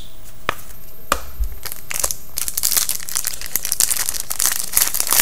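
A few light taps of cards being handled, then, from about two and a half seconds in, the dense crinkling and tearing of a foil trading-card pack being ripped open.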